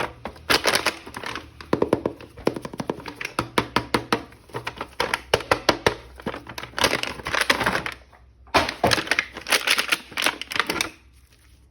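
Rapid clicks, taps and crinkles of plastic toy packaging being opened and handled, with a short pause about eight seconds in.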